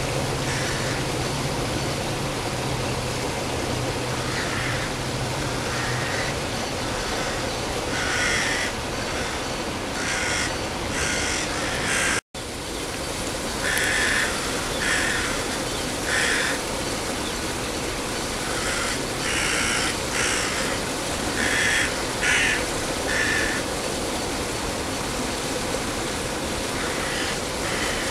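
Crows cawing repeatedly in short calls over a steady rushing background noise. The sound cuts out completely for an instant about twelve seconds in.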